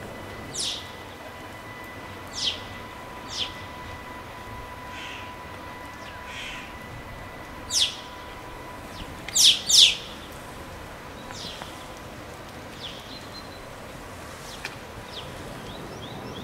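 A bird giving a string of short, high calls that slide steeply downward, the loudest two coming close together about halfway through, over a steady background hiss.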